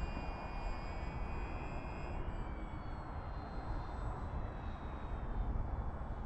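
Distant high whine of the twin electric motors and propellers of a radio-controlled Grumman HU-16 Albatross flying-boat model in flight. The whine drops in pitch about two seconds in as the plane passes, over a steady low rumble.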